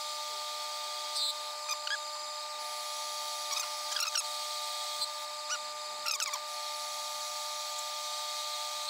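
Hardinge HLV-BK toolroom lathe running with a steady whine, with a dozen or so short high squeaks scattered through it.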